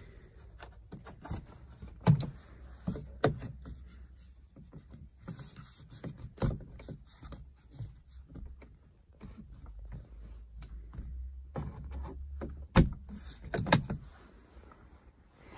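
Scattered sharp clicks and knocks from the overhead console switches and sun visor of a BMW E65 being worked by hand, over a low steady rumble.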